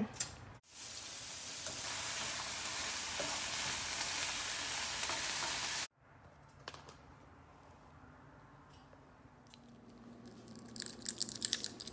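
Potato, carrot, spam and onion stir-fry sizzling in oil in a frying pan, a steady sizzle for about five seconds that cuts off suddenly, leaving only faint clicks and rustles.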